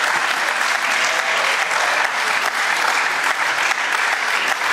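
Members of parliament applauding at the end of a plenary speech: many hands clapping in a steady, unbroken stream.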